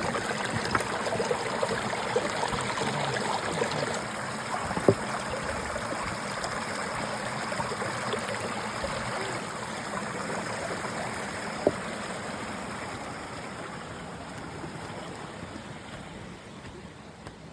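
Steady rush of flowing stream water, easing a little toward the end, with two sharp clicks about five and twelve seconds in.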